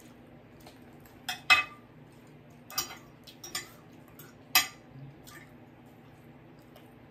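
Cutlery clinking against a plate or dish while eating: a handful of sharp, short clinks, the loudest about a second and a half in and just past halfway.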